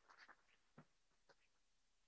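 Near silence broken by a few faint short clicks and rustles of papers and a folder being gathered up at a lectern.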